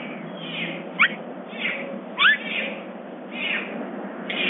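Bobcat chattering: a run of short, high, bird-like chirps about once a second, most sliding down in pitch, with two louder chirps sweeping up about one and two seconds in.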